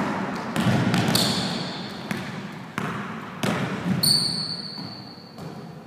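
Basketball being dribbled on a gym floor, the bounces echoing, at an uneven beat of roughly one every half-second to second. There are two high squeaks, the second about four seconds in and held for over a second.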